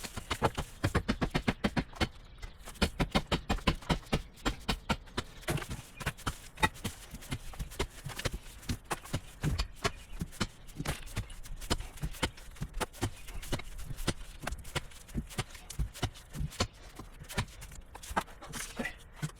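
A rapid, uneven series of sharp knocks or taps, several a second.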